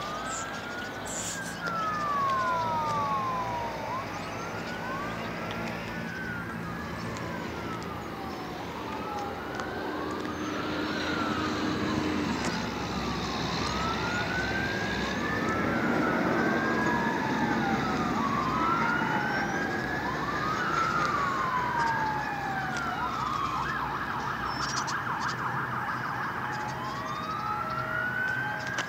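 Emergency-vehicle siren in a slow wail, rising and falling in pitch every few seconds. Late on it switches briefly to a fast warble, then goes back to the wail.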